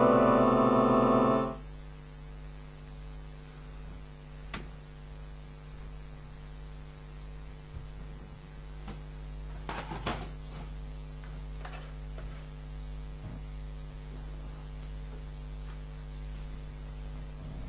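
An electronic keyboard holds a loud, dense sustained chord that cuts off abruptly about a second and a half in. A steady electrical mains hum is left, with a few faint clicks.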